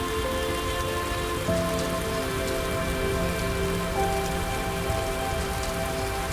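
Steady rain pattering on a surface, with scattered drop taps, under soft ambient music of long held notes that shift to new pitches a couple of times.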